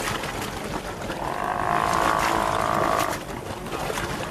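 A Steller sea lion roaring: one drawn-out call about two seconds long, beginning about a second in.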